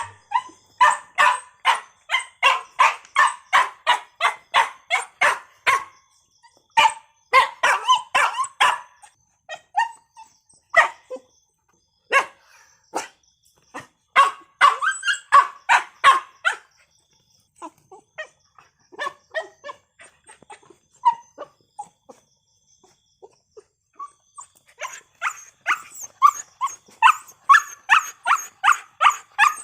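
A dog barking over and over in fast runs of about three barks a second. The barks come sparser and more broken through the middle stretch, then pick up again into a steady run near the end.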